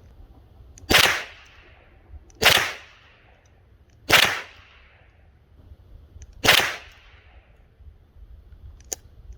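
Four .22 LR rifle shots from a Cooey Model 64, spaced irregularly about one and a half to two and a half seconds apart, each followed by a short echo. A faint click comes near the end.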